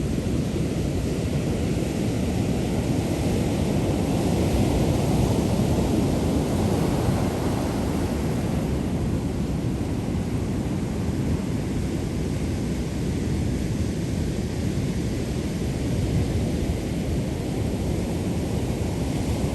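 Ocean surf at the shore, with wind on the microphone: a steady low rumble with no separate breaks.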